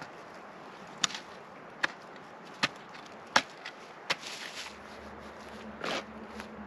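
Hand digging tools chopping into the ground: five sharp strikes, roughly one every three-quarters of a second. A low steady hum sets in just after the strikes.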